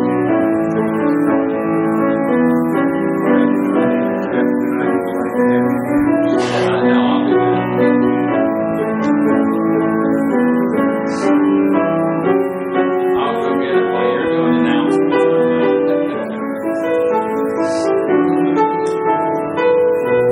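Piano playing an instrumental piece in sustained, overlapping chords.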